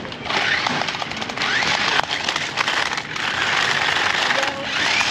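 Small electric motors of a toy remote-control stunt car whining as it drives fast over rough paving, the whine rising and falling in pitch, with a crackly rattle of the wheels on the ground.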